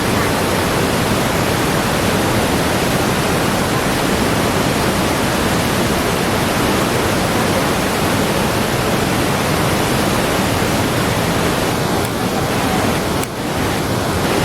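Khone Phapheng Falls on the Mekong, a huge volume of river water pouring over rock cascades, making a loud, steady rushing roar. The sound dips briefly twice near the end.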